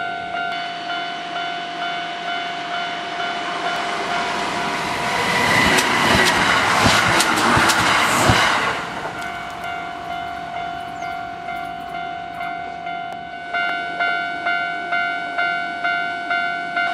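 Japanese level-crossing warning bell ringing at just under two strikes a second while a Kintetsu electric train passes, its wheels clacking over the rail joints, loudest between about four and nine seconds in. The bell rings louder again near the end.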